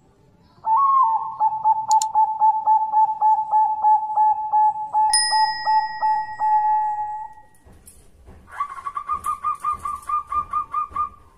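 An intro sound effect: a steady tone pulsing about four times a second, with a click and a bell-like ding partway through. Near the end, a zebra dove (perkutut) gives a quick run of short staccato coos, about five a second.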